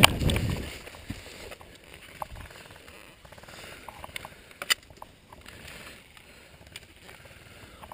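Faint rustling over a low hiss, with scattered sharp clicks; the sharpest comes a little past the middle.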